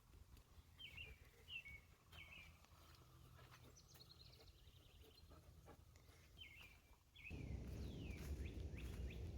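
Faint outdoor quiet with a wild bird chirping: short, falling chirps, several in a row early on and again about six and a half seconds in. A low rumble comes up near the end.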